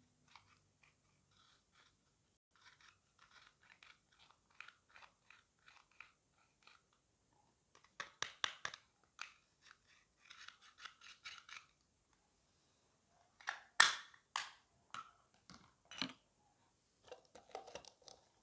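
Pressed pink makeup powder being scraped and crumbled out of a plastic compact with a brush handle: a run of light scratchy ticks, then several louder sharp taps and clicks, the loudest about 14 seconds in.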